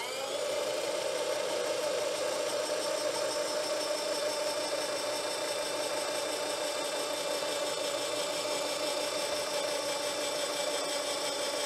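Presto Professional SaladShooter electric slicer-shredder motor starting up and running steadily as it shreds a peeled potato into a bowl, a steady whine that settles to speed within the first half second.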